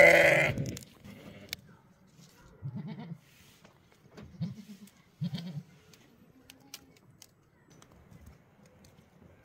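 Goats bleating: one loud bleat right at the start, then a few shorter, quieter bleats over the next few seconds.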